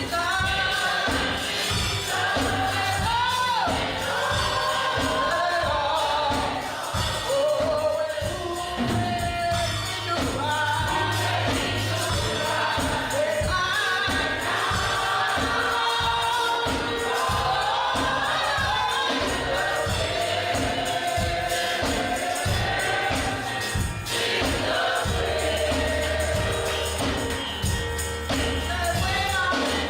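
Gospel music: a choir singing over a steady drum beat and bass line.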